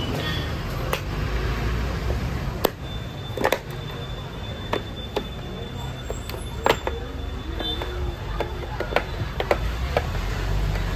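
Scattered sharp plastic clicks and taps as a car's wing-mirror housing is handled and pressed onto its mount, over a steady low rumble.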